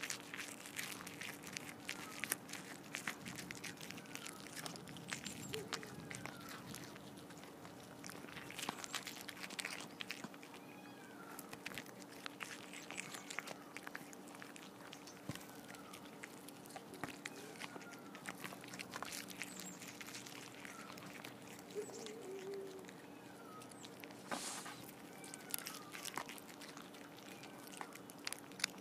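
Cats chewing and crunching grilled bass and bluegill close to the microphone: a dense, irregular run of wet clicks and crunches as they bite through the fish.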